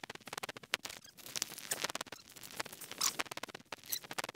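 Footsteps on loose, rocky riverbank ground: irregular crunching clicks and scrapes of stones shifting underfoot.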